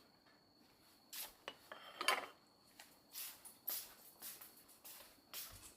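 Quiet handling sounds: a few scattered light clinks, knocks and scrapes of small objects being moved about, resembling tableware.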